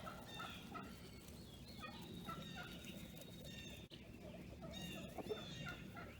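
Poultry calling faintly: many short, repeated calls, with a turkey gobbling among them.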